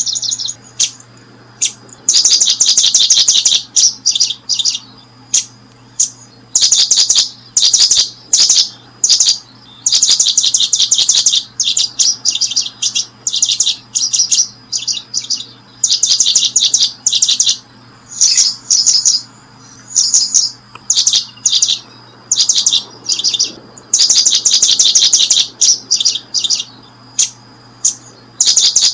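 Small birds chirping in rapid, trilled phrases that follow one another with short gaps, each phrase lasting from a fraction of a second to about a second and a half. A faint steady low hum lies underneath.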